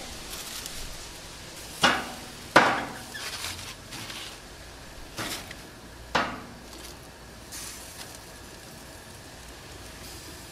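Metal grill tongs clacking against the grill grates and skewers while turning kebabs: a few sharp clanks, the loudest about two and two and a half seconds in and another about six seconds in, over a steady low sizzle of food on the grill.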